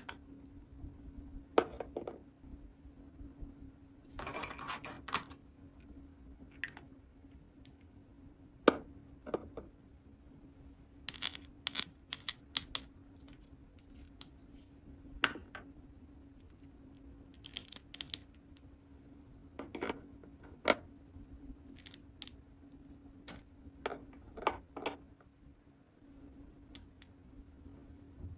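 Small hard plastic toy pieces being handled and set down: scattered clicks and taps, with a short rustle about four seconds in, over a faint steady hum.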